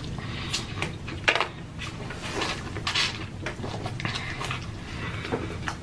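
A person chewing a mouthful of food with the mouth close to the microphone: irregular wet smacks and clicks, a few sharper ones, with no steady rhythm.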